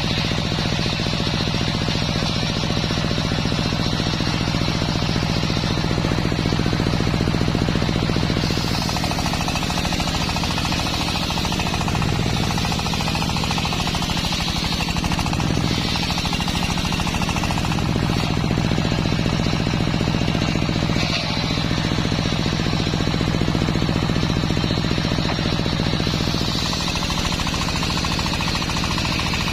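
A homemade engine-driven circular saw rig running steadily while ripping a waru log, with a rhythmic mechanical chugging. Its note changes about a third of the way in and again near the end.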